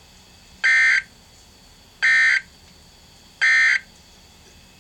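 NOAA Weather Radio end-of-message SAME data signal: three short, high-pitched buzzing data bursts about 1.4 seconds apart. The three bursts are the end-of-message code that closes the severe thunderstorm warning broadcast.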